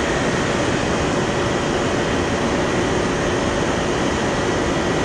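Steady rushing of water pouring through a dam spillway: an even, unbroken noise, with a faint high steady tone running underneath.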